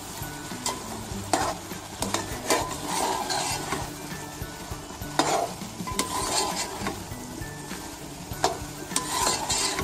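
Metal spoon stirring and scraping grated carrot halwa against a steel pot, with the ghee sizzling underneath: the halwa is being fried in ghee (bhunai). The scrapes and knocks come at irregular intervals, about once a second.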